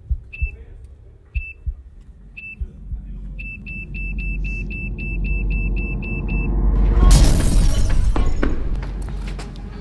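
Bomb-timer countdown beeps from a phone app: single short high beeps about once a second, then a fast run of about four a second with a low rumble swelling underneath. The beeps stop and, about seven seconds in, a loud explosion bursts out and dies away with crackling.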